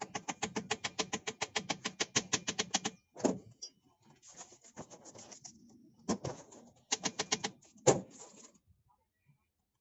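Ratchet wrench clicking rapidly, about eight clicks a second for three seconds, as it turns a bolt on an engine, then shorter runs of clicking broken by a few sharper knocks of metal on metal.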